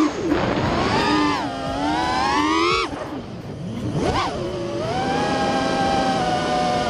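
Brushless motors of an FPV freestyle quadcopter (T-motor F60 Pro 2350kv) whining, pitch rising and falling with the throttle. The whine drops off sharply about three seconds in, then jumps back up around four seconds and holds a steady high pitch.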